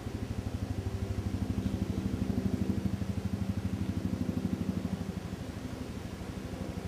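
A motor vehicle engine running with a fast, even throb, growing louder to a peak about two to three seconds in and then easing a little.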